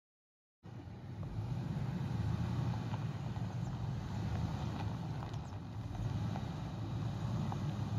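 Ford F-150 pickup's engine running with a steady low rumble as the truck crawls over a rough, rocky dirt trail, with faint ticks of small stones under the tyres. The sound cuts in suddenly about half a second in, after silence.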